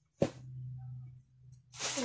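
A single sharp click about a quarter second in, over a steady low hum, then near the end the crinkling rustle of plastic bubble wrap being handled.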